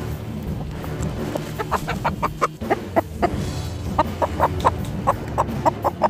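Chickens clucking in a rapid run of short notes, about three or four a second, starting about a second and a half in, over background music.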